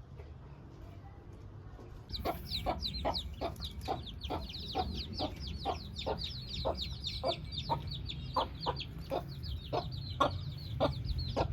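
Chickens clucking in a steady rhythm, about three clucks a second, with many quick high chirps over them. The sound starts about two seconds in.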